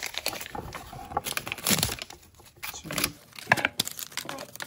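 Paper dollar bills crinkling as they are handled and counted, with rustling of the cardboard box: a run of short, irregular crackles.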